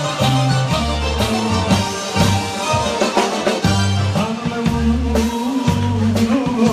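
Live band music played loud: an accordion over a bass line that changes note about every half second and a steady drum beat, for a Serbian-language folk song.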